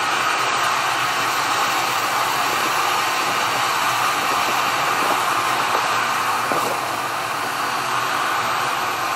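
Steady rushing hiss of steam from an 0-6-0 steam locomotive, with no distinct exhaust beats.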